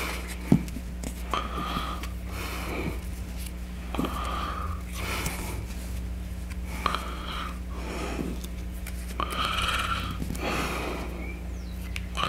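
A person breathing through the nose close to the microphone, in and out every couple of seconds, over a steady low hum. A single sharp click comes about half a second in.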